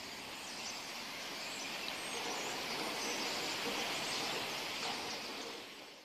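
Faint outdoor ambience: a steady hiss of background noise with faint, distant bird chirps, fading out near the end.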